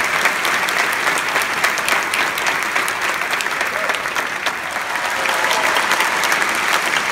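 Large theatre audience applauding, a steady dense clapping that holds its level throughout.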